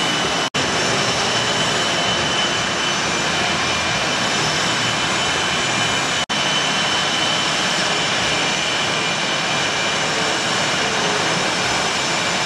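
Twin-engine F/A-18 Hornet jets running at ground idle as they taxi out, a steady rushing jet noise with a high turbine whine on top. The sound cuts out for an instant twice, about half a second in and about six seconds in.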